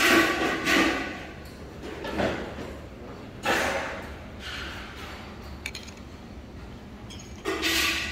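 Spoon and dishes being handled on a meal tray: a few short knocks and rustles, and about halfway through a light clink.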